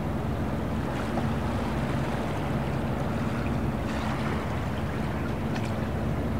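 Harbour ambience: a boat's engine drones steadily and low under the rush of moving water, with a few faint splashes or ticks.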